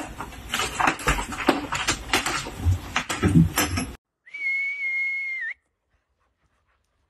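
Scrabbling, clicking and rustling with a couple of low thumps as a cat claws its way up fabric curtains. About four seconds in there is one steady high whistle lasting about a second and a half that cuts off suddenly, and then near silence.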